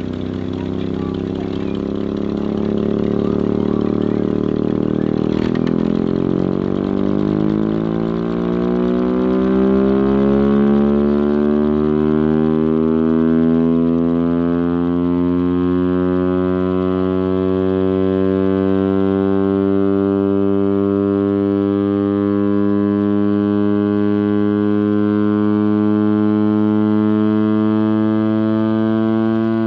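Chrysler air raid siren winding up: its Hemi V8 engine runs underneath while the siren's tone rises steadily over roughly the first ten seconds, then holds as a steady, loud wail.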